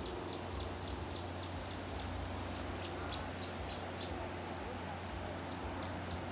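Steady rushing of the River Nile's rapids, with a high chirping call repeated about three times a second over it; the chirping pauses about two-thirds of the way in, then resumes near the end.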